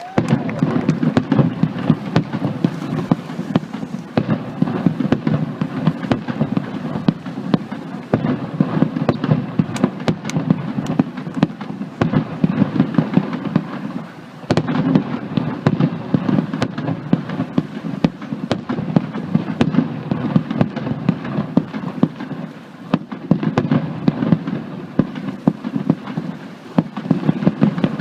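Fireworks display: a dense, continuous barrage of rapid bangs and crackles, easing briefly about halfway through before picking up again.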